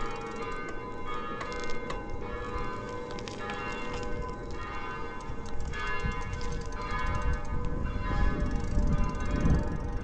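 Bells ringing, with repeated strikes whose tones overlap and ring on. A low rumble gets louder in the second half.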